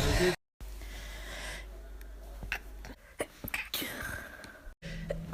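Faint breathy sounds from a person over a low hiss, with a few soft clicks. The stretch is broken by two abrupt cuts, one near the start and one near the end.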